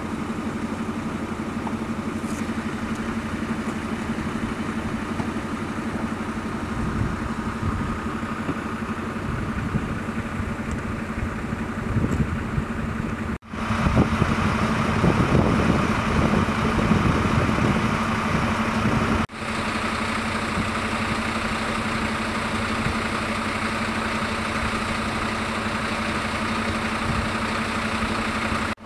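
Fire engine's diesel engine idling with a steady hum, in three stretches split by abrupt cuts a little under halfway and about two thirds through; the middle stretch is louder and rougher.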